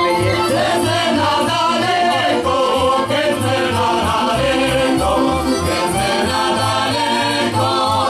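A Slovak folk song sung by a group of voices over instrumental accompaniment with a steady, regular bass beat.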